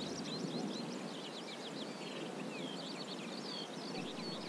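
Small birds singing in chorus: many short overlapping chirps and whistled notes, over a faint even hiss.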